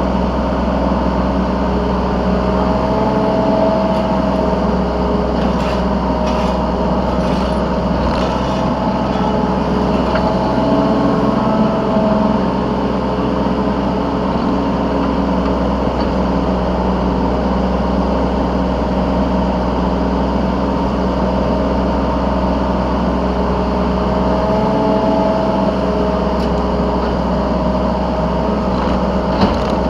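Yanmar B3 Sigma 3-tonne mini excavator's diesel engine running steadily, heard from the operator's seat, with its note rising under load twice as the machine works, once for several seconds early on and again shortly before the end. A few light clicks and knocks come through during the first working stretch.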